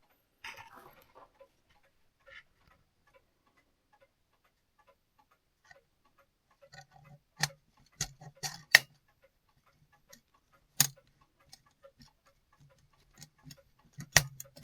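Brass clock movement parts clicking and knocking as they are handled and fitted during reassembly: a quiet stretch of light rustling, then irregular sharp metallic clicks in the second half, a few of them loud.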